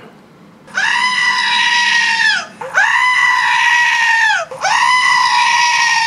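Three long, loud goat-like screams, each about a second and a half, held on one pitch and then dropping off at the end.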